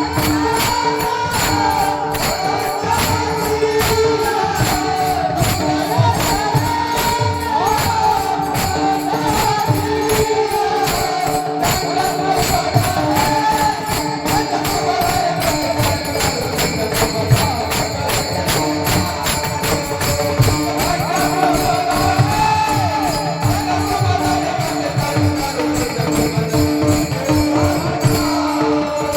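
Devotional kirtan music: a wavering, gliding melody over a steady drone, with a fast, steady beat of jingling metal percussion.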